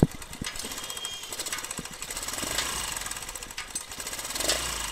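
TVS Star City Plus 110 cc air-cooled single-cylinder engine running with a fast, steady metallic clatter from the top end, which the mechanic takes for a loose timing chain. A single sharp knock sounds right at the start.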